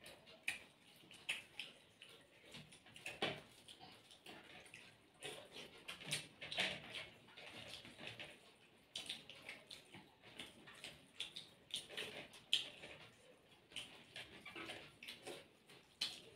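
Wet chewing and lip-smacking of people eating rice and chicken curry, with squelches of rice and gravy being mixed and scooped by hand; short smacks and clicks come at irregular intervals.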